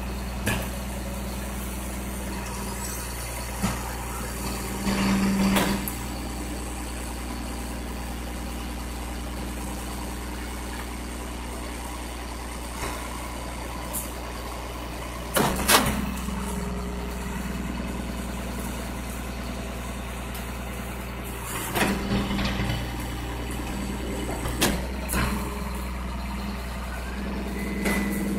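Rear-loader garbage truck's engine running steadily while its hydraulic tipper holds a steel dumpster over the hopper. A handful of metal clanks and bangs sound as the dumpster is worked, the loudest about halfway through and another a few seconds later.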